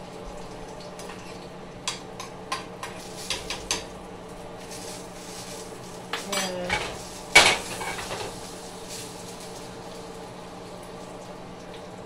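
Metal utensil clinking and scraping against a nonstick frying pan while eggs are being scrambled: a run of light clicks about two seconds in, then one loud clank a little past the middle.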